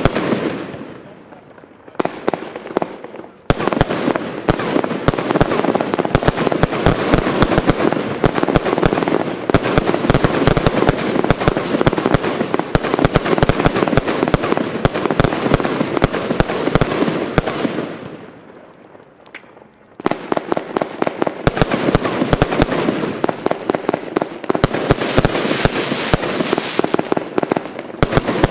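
Lesli Prezident Piro 144-shot firework display box firing: a single shot and burst at the start and another about two seconds in, then a rapid barrage of many shots and bursts from about three and a half seconds in that dies away around eighteen seconds. A second rapid barrage starts about twenty seconds in.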